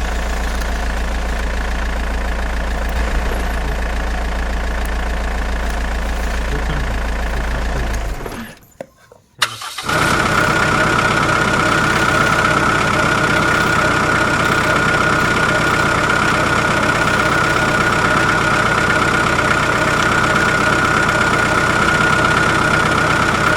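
A motor running steadily. About eight and a half seconds in it drops out for about a second, then a different steady motor sound with a high whine runs on.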